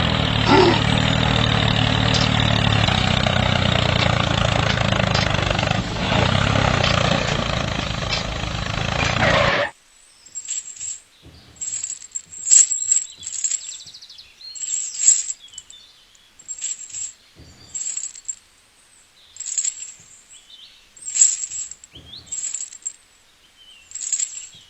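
A small motor runs steadily for about ten seconds and then cuts off suddenly. After it, birds chirp in short, scattered calls.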